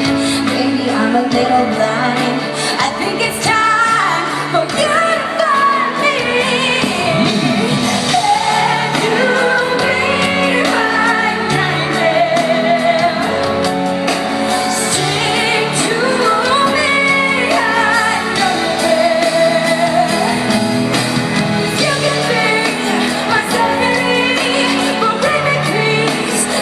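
Live pop ballad: a woman singing lead over sustained keyboard and band chords, amplified through a concert PA.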